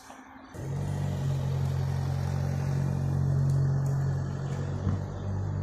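An engine running steadily with a low hum, starting abruptly about half a second in.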